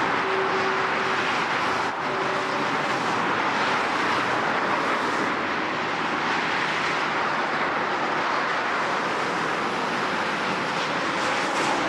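Heavy road traffic: a steady, continuous wash of engine and tyre noise from many vehicles passing, without breaks or distinct single events.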